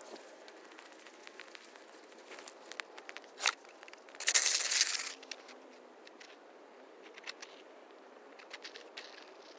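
Snow being shovelled and walked on close by: scattered crunches of snow, a sharp knock about three and a half seconds in, then a loud scrape lasting about a second.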